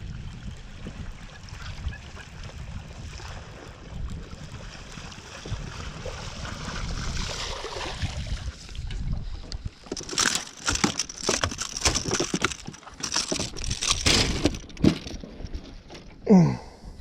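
Water sloshing and lapping around a small boat, with a low rumble of wind on the microphone, then a few seconds of sharp splashing or rustling strokes past the middle and a short falling squeak near the end.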